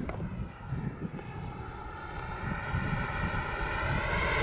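E-flite Havoc Xe's 80 mm electric ducted fan whining in flight, growing steadily louder as the jet comes closer, over a low rumble of wind on the microphone.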